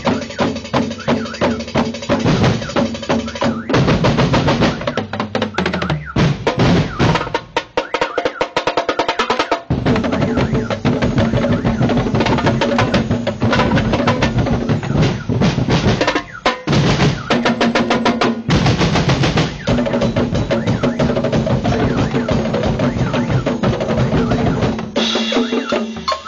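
Philippine tribu festival drum corps playing loud, fast, continuous drumming: big bass drums, snares and tom sets, and crash cymbals together, with a few short breaks where the pattern changes.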